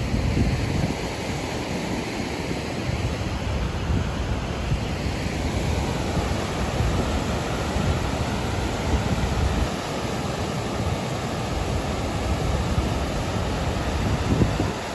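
River in spring flood rushing white over and below a dam: a steady, loud rush of falling water, with uneven low gusts through it.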